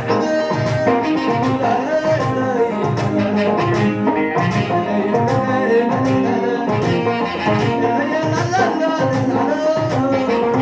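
Live Eritrean guayla music played through a PA system: a man singing over a plucked krar lyre, with keyboard and a steady, regular drum beat.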